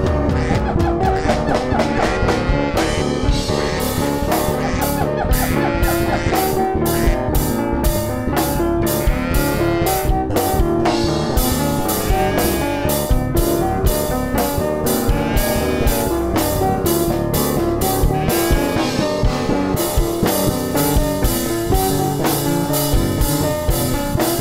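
Music with a drum kit keeping a steady beat under pitched instruments.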